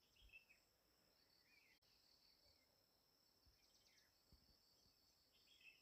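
Near silence, with faint steady insect trilling and a few soft bird chirps.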